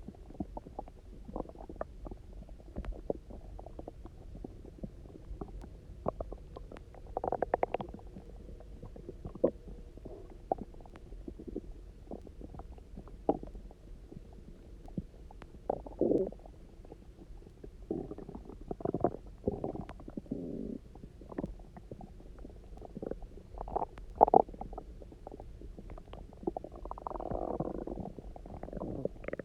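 Empty human stomach gurgling and rumbling after a 24-hour fast with a lot of water just drunk. It goes in an irregular string of short pops and gurgles, with a longer bubbling gurgle near the end.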